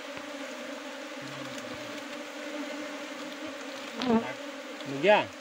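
Honeybee cluster on a tree branch humming steadily, a dense buzz of many bees. Twice near the end, about four and five seconds in, a louder buzz sweeps up and down in pitch as a bee flies close past.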